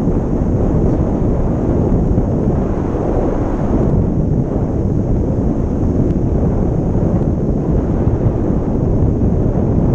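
Wind from a paraglider's airspeed buffeting a pole-mounted camera's microphone: a steady, loud, low rush of air.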